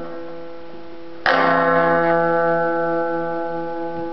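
Amplified homemade cigar box guitar strummed once about a second in, the chord ringing on and slowly fading; before the strum the previous chord is dying away.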